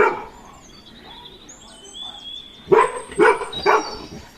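Golden retriever barking: one bark at the start, then three quick barks in a row near the end, with birds chirping in the background.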